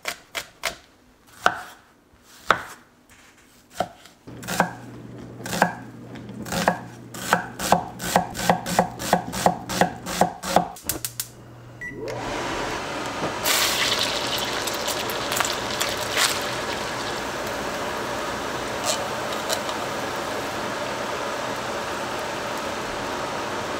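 A cleaver chopping on a wooden cutting board: a few scattered knocks, then a quick run of two or three chops a second for several seconds. About halfway through the chopping stops and a range-hood vent fan comes on with a steady whoosh that runs on.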